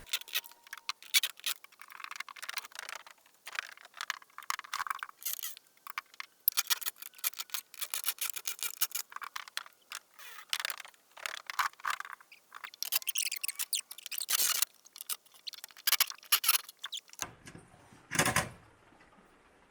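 Rapid, irregular high squeaking and scraping of screws and wooden planks as the planks are worked loose from a wall, with a single louder knock near the end.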